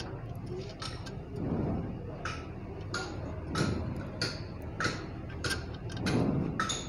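Steel bolts and small metal parts clinking as they are handled and set against the aluminium housing of a Bock bus AC compressor: a run of sharp clicks and clinks, a few each second.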